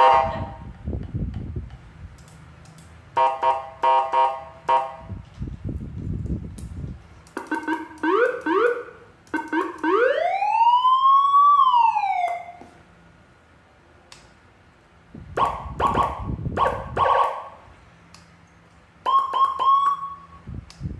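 A 12-tone electronic siren module stepping through its different siren sounds in short bursts: pulsed warbling tones, quick rising yelps, then a slow wail that rises and falls about ten seconds in, and a steady tone near the end. Low rumbling noise comes between some of the tones.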